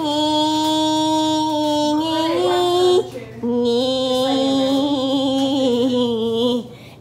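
A woman singing long drawn-out notes without words, as her own graduation song. The first note is held about three seconds and steps up toward its end; after a brief break comes a lower note, also held about three seconds, with a wavering vibrato.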